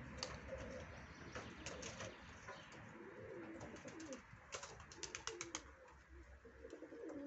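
Domestic pigeons cooing, several low coos overlapping, with two clusters of quick sharp clicks, the first about a second and a half in and the second around five seconds in.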